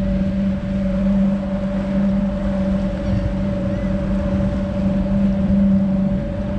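Boat's outboard motor running at a steady pitch while under way, with a rush of wind and water.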